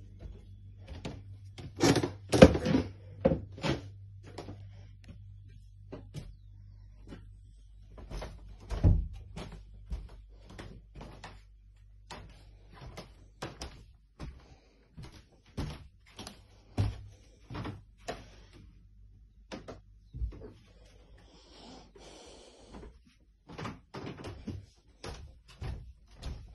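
Footsteps on wooden stairs and plank floorboards: an uneven run of hollow knocks, loudest about two to four seconds in and again near nine seconds.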